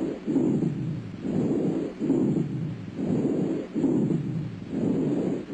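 Abnormal breath sounds from a patient's chest heard on auscultation: fast, noisy, low-pitched breathing with about one breath phase a second.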